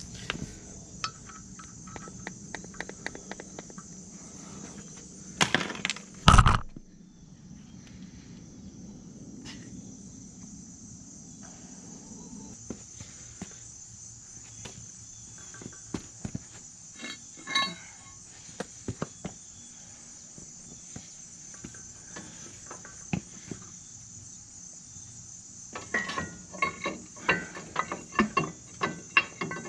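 Scattered metallic knocks and clinks as the heavy rear axle housing of a tractor, hung from a hoist, is worked by hand onto the transmission, with a loud thump about six seconds in and a quick run of knocks near the end. Steady high chirring of insects runs underneath.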